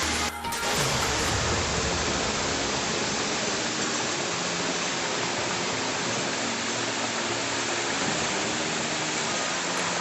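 Waterfall: a steady, dense rush of falling water, with a brief dip about a third of a second in.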